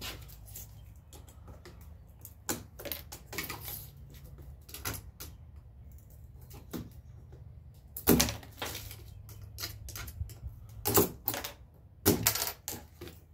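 A flat scraper blade prying and scraping at the wooden trim around a door's window pane: irregular clicks, taps and scrapes, with a sharper knock about eight seconds in and several more near the end.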